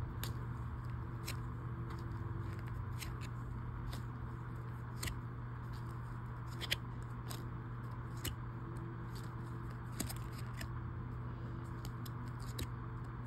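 Trading cards being handled one at a time in gloved hands: sharp, irregular clicks and snaps of card edges, about one a second, over a steady low hum.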